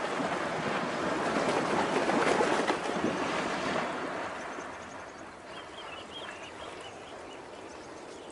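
River water splashing and churning as hippos move through it, loud for the first four seconds and then dying down to a softer wash.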